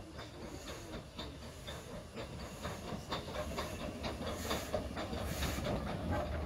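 Hunslet Austerity 0-6-0 saddle-tank steam locomotive running slowly past close by, with a low rumble and a run of clicks and clanks from its wheels and motion, getting louder as it comes near. Steam hisses from it in two louder bursts in the second half.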